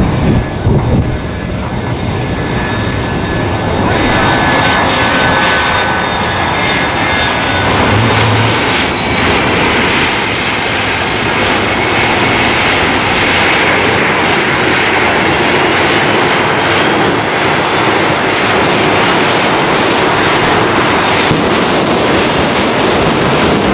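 Shockwave jet truck's three Westinghouse J34 jet engines running with a loud, steady roar that grows louder about four seconds in.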